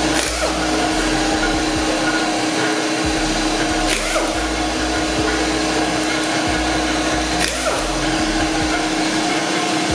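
Shop air compressor running steadily, a constant hum and hiss that feeds the air impact wrench on the wheel's lug nuts, with two brief clicks about four and seven and a half seconds in.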